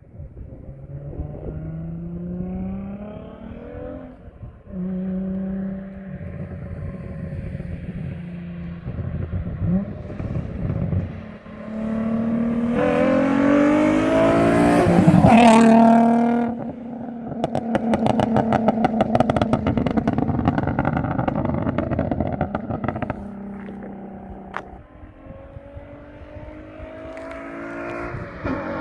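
Infiniti G35's 3.5-litre V6, with test pipes in place of the catalytic converters and a 3-inch exhaust, accelerating through the gears: the engine note climbs, falls back at each shift, and is loudest about halfway through. It then holds a steady pitch for several seconds before climbing again near the end.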